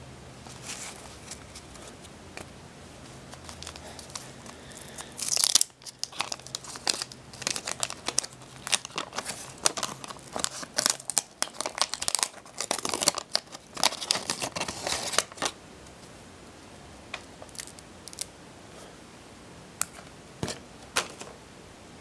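Wax-paper wrapper of a Garbage Pail Kids trading-card pack being torn open and crinkled by hand: a sharp rip about five seconds in, then about ten seconds of crackling paper, then a few light clicks.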